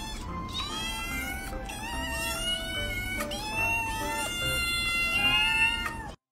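Several kittens meowing, a run of overlapping high calls that rise and fall in pitch, over background music; the sound cuts off abruptly near the end.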